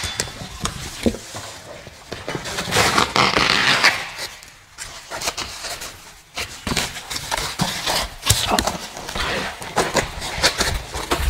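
Foam packing pieces and cardboard being handled and pulled out of a box: irregular rustling, scraping and soft knocks, with a longer rustle about three seconds in.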